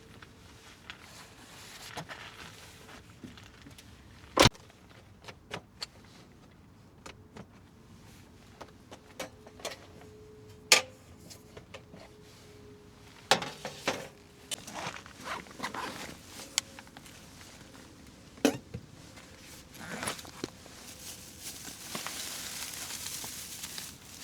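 Cooking gear and tableware being handled for a sukiyaki dinner: irregular sharp clicks, knocks and clinks, with a soft hiss building near the end.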